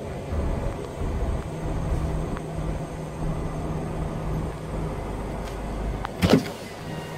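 Car running, heard from inside the cabin: a steady low engine and road rumble. Near the end comes a single loud thump, after which the rumble drops away.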